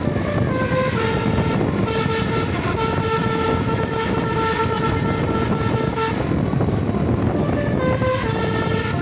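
Bus's basuri 'telolet' multi-tone air horn playing a melody: stepped notes, then one note sounded again and again for several seconds, a pause of about a second and a half, and a fresh run of rising and falling notes near the end, over a steady low rumble.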